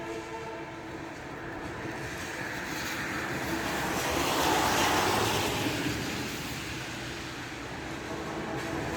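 The strange droning noise heard in the sky, a layered, horn-like drone of several steady tones. The tones fade early on as a broad rushing noise swells to its loudest about halfway through, then the drone comes back near the end.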